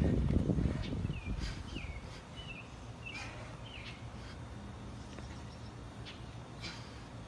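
Birds chirping in short, quick, bending calls, several in a row in the first few seconds and a few more later. Under them is a low rumble that is loudest in the first second or so and then settles to a steady background.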